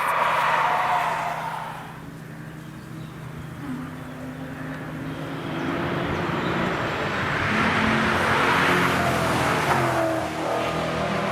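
Cars passing at speed on a race track, one after another: an engine note fades away in the first couple of seconds, then another car's engine approaches, rising in pitch, and goes by loudest about eight to nine seconds in, with another following near the end.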